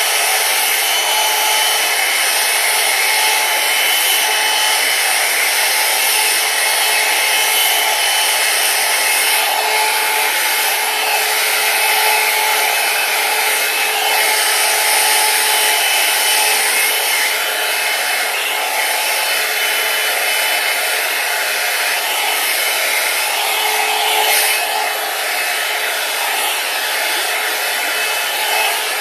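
Handheld hair dryer running steadily, blowing air with a constant motor whine and small swells in level.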